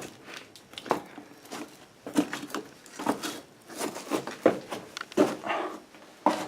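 Irregular knocks, taps and scuffs of movement and handling, with the short echo of a small enclosed room.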